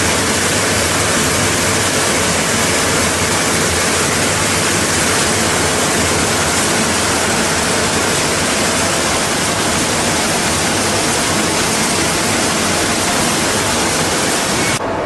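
Plastic color sorting machine running: a steady, loud rushing hiss, with its higher part cutting off abruptly at the very end.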